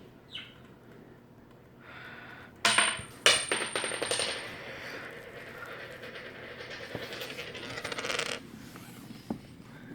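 A small metal ring dropped onto a hard surface: two sharp clinks about half a second apart, then it rattles and rings as it spins or rolls for about five seconds before stopping suddenly.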